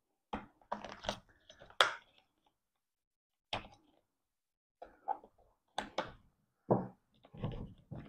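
Screwdriver prying at the hard plastic connectors of a Toyota Prius Gen 3 inverter wiring harness: scattered, irregular clicks and knocks of plastic and metal, some in quick pairs.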